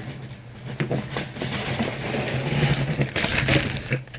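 Rustling and scattered light clicks of wooden clothespins being gathered and handled, busiest about two to three and a half seconds in, over a steady low hum.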